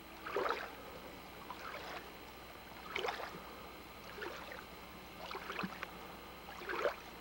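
Canoe paddle strokes in calm water: a soft dip-and-swish splash about every second and a half as the paddler pulls the aluminium canoe along.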